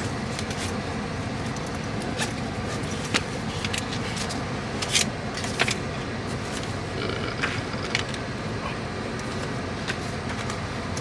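Small clicks, knocks and rattles of belongings being gathered up and moved around inside a car, a few sharper knocks about three and five seconds in, over a steady low rumble.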